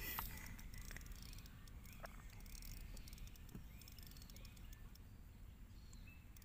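Quiet outdoor ambience with a small animal's faint short chirps repeating every half second to a second, and a faint click or two.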